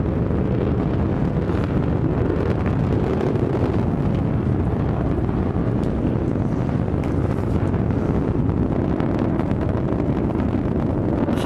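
New Shepard rocket's BE-3 liquid-hydrogen/liquid-oxygen engine burning during ascent, heard as a steady low rumble without breaks.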